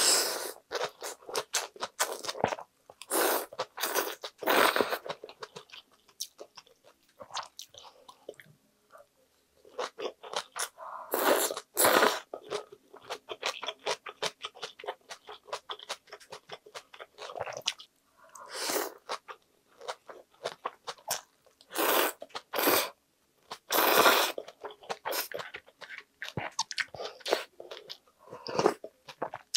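Close-up eating of icy mulhoe (raw-fish soup) with somen noodles: slurping noodles in at the start, crunchy chewing of raw fish and vegetables in irregular bursts, and a sip of broth near the end.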